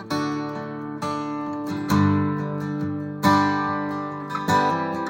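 Acoustic guitar playing an instrumental passage between sung verses, a new chord struck roughly every second and left to ring.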